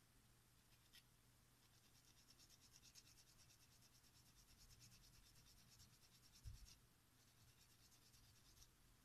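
Faint, fast scratching of a small plastic miniature part rubbed against a sanding stick, in a long run of fine strokes starting about two seconds in and a shorter run near the end. A soft thump comes about two-thirds of the way through.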